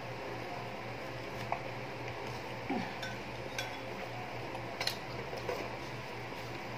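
A few light, scattered clicks and taps of tableware at a meal, over a steady low hum.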